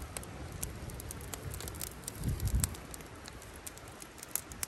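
Wood campfire crackling with scattered sharp pops, over low wind rumble on the microphone that swells a little past halfway.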